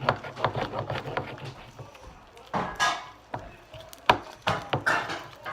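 Fluffy slime made of glue, shaving cream and Tide being squished and mixed by hand, giving irregular sticky clicks, pops and short squelching swishes.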